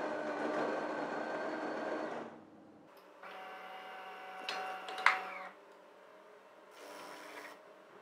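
De'Longhi bean-to-cup espresso machine grinding coffee beans, the grinder stopping about two seconds in. Its internal mechanism then whirs with a sharp click about five seconds in, and gives a short whir near the end as it prepares to brew the espressos.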